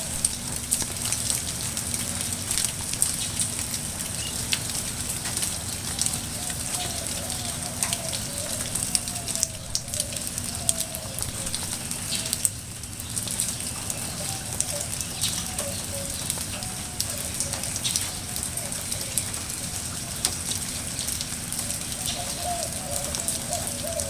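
Heavy rain falling steadily, with a constant hiss and many small sharp drop impacts crackling on nearby surfaces.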